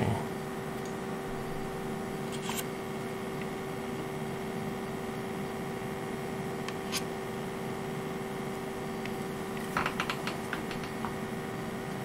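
Light clicks and taps from a clear acrylic single-board-computer case being handled, a scattered few at first and a small cluster near the end, over a steady hum with a fixed tone.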